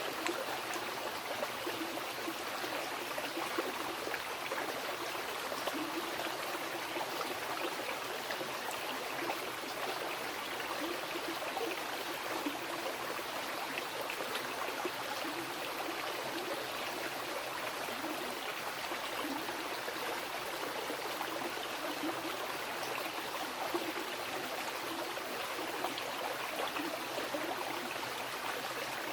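Mountain river flowing over rocks: a steady rush of water with fine gurgling and splashing detail throughout.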